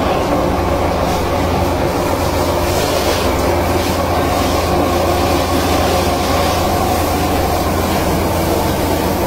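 Electric mincer-type grinder crushing khaman dhokla, its motor running with a steady, loud hum while crushed strands are pushed out through the die plate.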